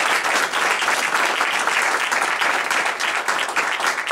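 Audience applauding, many hands clapping steadily, with the speaker at the podium clapping along.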